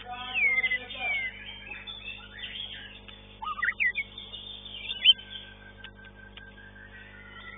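White-rumped shama (murai batu) singing: clear whistled notes and falling slurs in the first second, quick sharp rising notes about three to four seconds in, then one long held whistle to the end.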